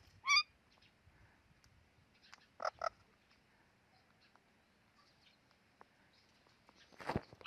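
Indian ringneck parrot giving short, sharp calls: one just after the start, a quick pair a few seconds in, and a louder one near the end.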